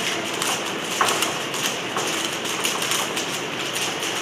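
Rubik's cube being turned rapidly in the hands: a fast, irregular run of small plastic clicks over a steady background hiss.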